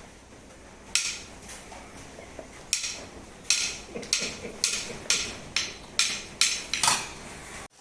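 Sharp knocks or taps: one about a second in, then a run of about ten, roughly two a second.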